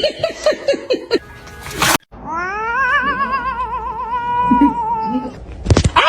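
A cat's long wavering yowl, lasting about three seconds, that rises at first and then warbles. Before it comes a quick run of short falling cries, and near the end there is a knock and one short falling cry.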